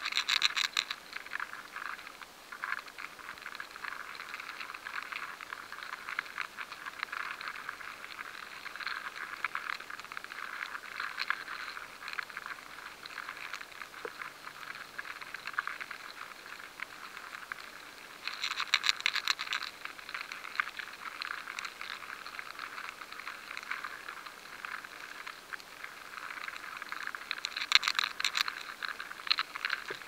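Grain weevil (Sitophilus granarius) larvae feeding inside rye kernels, amplified by a high-sensitivity sensor: a rapid scratching crackle of many fine clicks over a hiss, like grains rubbing together. Louder clusters of fast clicks come at the very start, about 18 seconds in and about 28 seconds in.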